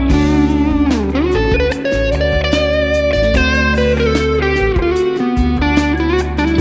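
Fender American Professional Deluxe Shawbucker Telecaster playing a single-note lead line with long held notes and a sliding bend about a second in, over a backing track of bass and drums.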